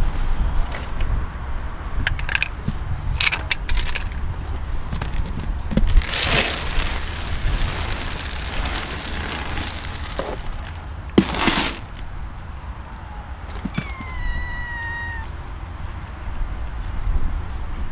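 A kitten meows once, one long call falling slightly in pitch, near the end. Before it come scattered clicks and two stretches of rustling, about six and about eleven seconds in, over a steady low rumble.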